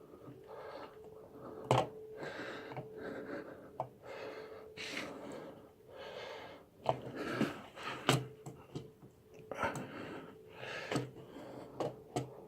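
A person breathing hard in repeated puffs with the effort of working a part free, with a few sharp knocks of metal parts in between.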